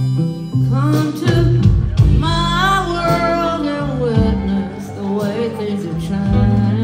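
Live country-blues band playing a slow song on acoustic and electric guitars over a held bass line, with a bending, voice-like melody line above.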